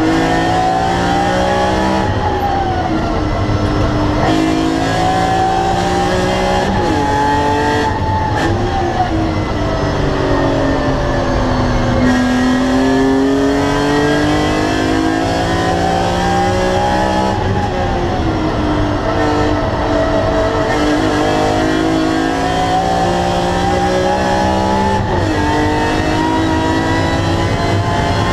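BMW E46 M3 CSL's 3.2-litre straight-six, fitted with a carbon intake airbox, heard from inside the cabin under hard acceleration. The revs climb repeatedly, with quick drops at several upshifts. Twice the revs fall away more slowly before climbing again.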